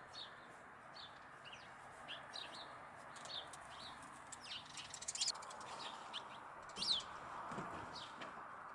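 Small birds chirping and twittering: short, high, quick calls, some sliding downward, with a brief rapid rattle about five seconds in, over a faint steady background rush.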